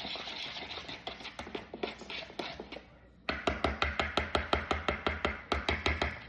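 A whisk beating cornbread batter in a bowl. It starts with quick, softer strokes, then after a short break about three seconds in comes a fast, even run of sharp clicks, about six a second, as the whisk strikes the bowl.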